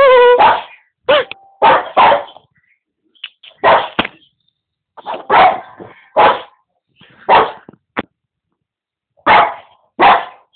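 Boston terrier barking in short, sharp barks, mostly in pairs with pauses of a second or two between them; the first bark is drawn out.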